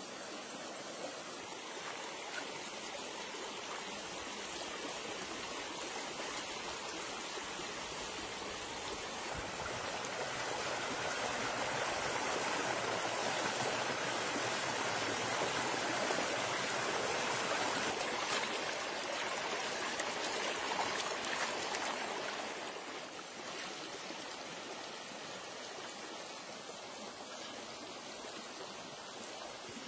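Shallow rocky stream rushing over stones, a steady water noise that swells louder for about ten seconds in the middle and then falls back.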